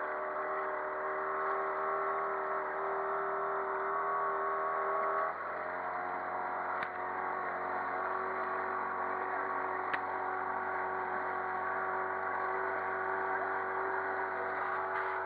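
Yamaha outboard motor running steadily with the boat under way, its note dropping slightly about five seconds in.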